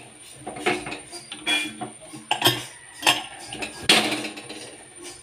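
Metal pressure cooker lid being worked open: about five sharp clinks and clanks of metal on metal, some ringing briefly, with the loudest knock about four seconds in.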